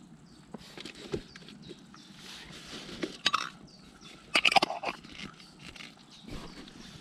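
Handling noises from making a sandwich: a plastic sauce jar and its lid picked up and set down among food on a plastic bag, giving scattered clicks and rustles, with the loudest crinkling bursts about three seconds in and about four and a half seconds in.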